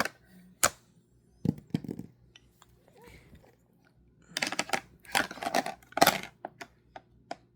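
Tableware clinking and knocking at a meal: a few separate clicks, then a dense clatter of taps about four to six seconds in.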